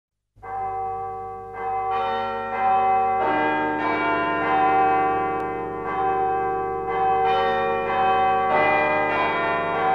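Church bells ringing: several bells struck one after another at an uneven pace, each ringing on so that their tones overlap.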